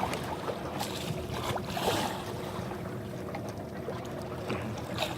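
Boat engine running steadily with a low rumble and a faint hum, under wind and water noise, with scattered light knocks and a couple of brief rushes of noise.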